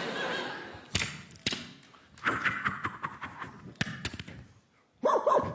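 Mouth-made sound effects: a few sharp knocks and thumps, with a short vocal noise about two seconds in and another vocal sound starting near the end.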